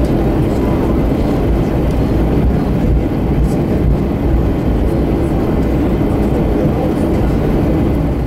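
Steady low rumble inside the cabin of an Airbus A321 taxiing, its CFM engines running at taxi power.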